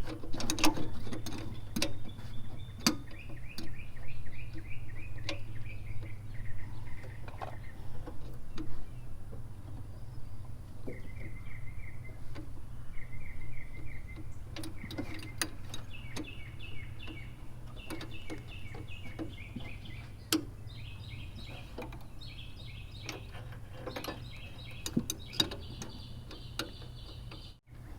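Scattered metallic clicks and clinks of a 13mm wrench working the carburetor mounting nuts, loudest in the first few seconds. Birds chirp in repeated trills in the background over a low steady hum.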